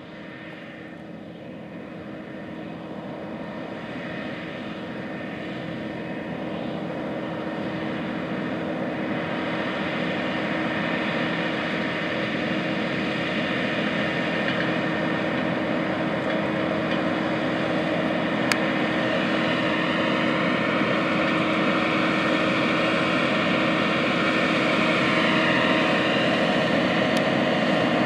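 John Deere 9520RX tracked tractor's diesel engine running under load as it pulls a 24-row corn planter, a steady drone growing steadily louder as the tractor approaches.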